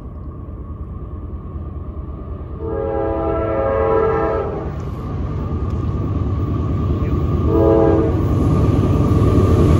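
A CSX freight train's lead diesel locomotive sounds its multi-note air horn for the road crossing: one long blast of about two seconds, then a short blast about three seconds later. Underneath, the rumble of the approaching locomotives grows steadily louder.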